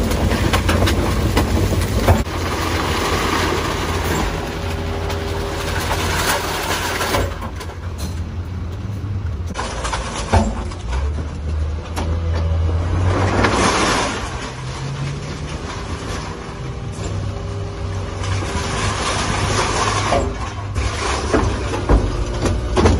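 Rear-loader garbage truck's diesel engine running steadily while its hydraulic bin lifter raises a large wheelie bin and tips it into the hopper. Rushing hisses come and go several times, with a few sharp knocks from the bin and lifter.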